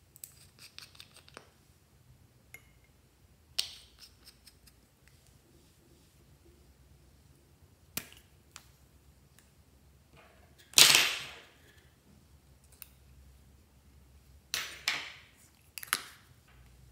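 Plastic lipstick tubes being handled and opened: a scatter of sharp clicks and snaps as caps are pulled off and cases worked, with one louder scraping rush lasting about a second near the middle and a few more snaps near the end.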